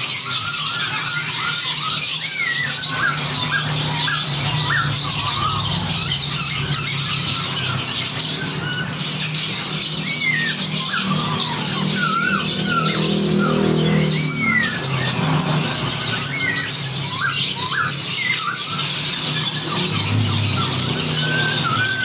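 A dense chorus of many songbirds chattering and whistling over one another: short rising and falling whistled notes over a constant high twittering. It is a layered combination recording of songbirds, made to sound like a flock singing back and forth, used as masteran to teach cage birds.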